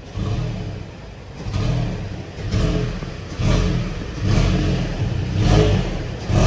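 Toyota Tacoma pickup's engine being blipped in short, repeated surges about once a second while the truck is backed slowly.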